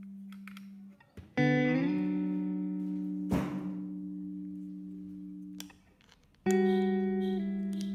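Background music: plucked guitar chords, struck about a second and a half in and again about six and a half seconds in, each left to ring and fade.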